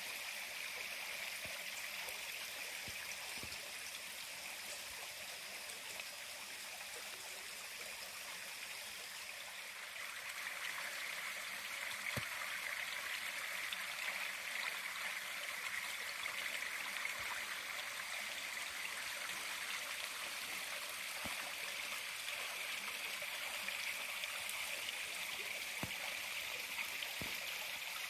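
Steady rushing of a stream running out of sight, a little louder from about ten seconds in.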